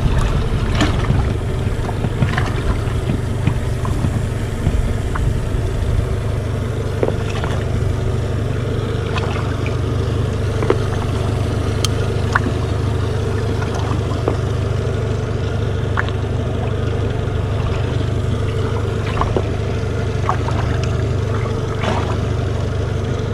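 Honda four-stroke outboard motor running steadily, a constant low hum with scattered light clicks over it.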